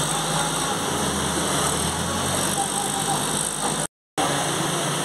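Mobile crane's diesel engine running steadily, a low hum over broad industrial noise. The sound cuts out for a moment about four seconds in.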